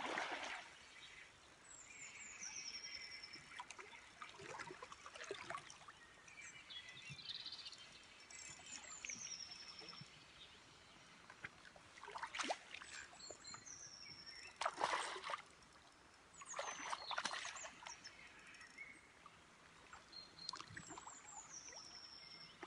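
Water splashing in short bursts as a hooked barbel thrashes at the surface and is netted in a shallow river. The loudest splashes come at the start and around the middle. A songbird repeats a short, high, falling song phrase about four times.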